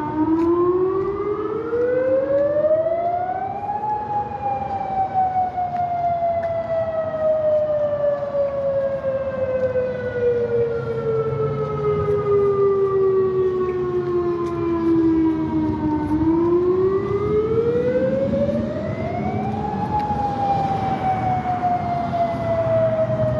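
Modulator outdoor warning siren sounding a test wail. Its pitch rises over about four seconds, falls slowly for about twelve, then rises again and starts another slow fall near the end.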